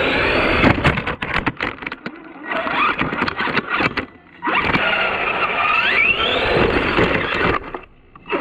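An RC car's motor and gears whining, heard from on board, the pitch climbing as the throttle opens, with sharp knocks and rattles as it runs over bumps. The whine drops away briefly about two and four seconds in, and again near the end.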